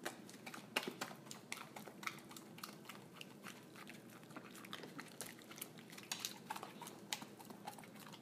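A dog chewing and smacking on strands of cooked noodles: a run of quick, wet mouth clicks.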